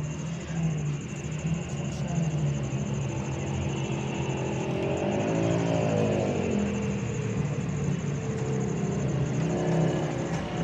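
A motor vehicle engine running steadily, with one brief rise and fall in pitch about five to six seconds in, like a vehicle revving or passing by.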